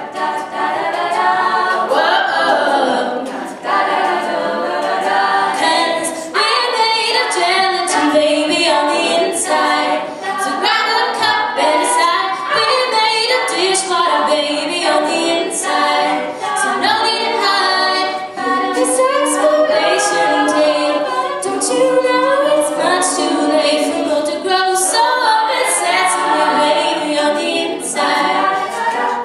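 Women's a cappella group singing without instruments: a solo voice out front over the group's backing vocals.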